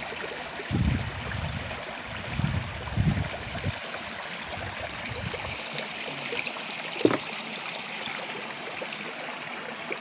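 Small creek flowing over a shallow riffle of stones: a steady rushing and trickling of water. A few low thuds come in the first four seconds, and a sharp click about seven seconds in.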